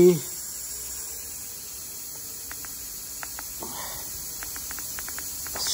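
Steady background hiss in a workshop, with a run of faint, light clicks in the second half and a brief rustle a little before the end.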